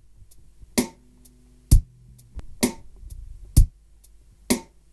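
A slow, steady drum beat of about one hit a second, alternating a deep kick-like thump with a sharper snare-like hit. A faint low sustained note sounds briefly under the first couple of beats.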